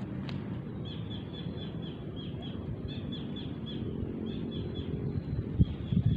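A small bird repeating short high chirps in quick runs of several notes, over a steady low rumble of wind on the microphone; a couple of low bumps near the end.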